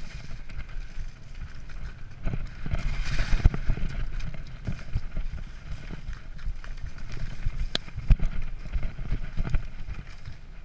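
Mountain bike riding fast down a rough gravel singletrack: a continuous low rumble of tyres on stones, with frequent knocks and rattles from the bike over bumps and a brief hiss about three seconds in.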